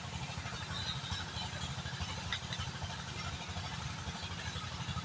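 Small engine running steadily with a fast, even low chugging over a steady hiss: the hoist engine hauling coal up.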